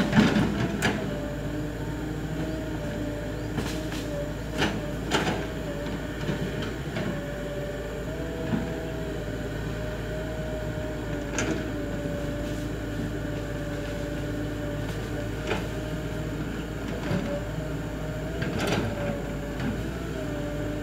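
Tracked hydraulic excavator running with a steady, slightly wavering whine while its bucket works a pile of cleared brush, with a few sharp knocks and cracks scattered through, the loudest right at the start.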